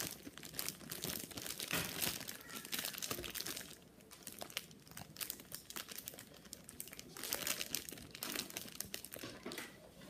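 Plastic packaging being handled and crinkled, a dense run of crackles that eases off about four seconds in and picks up again.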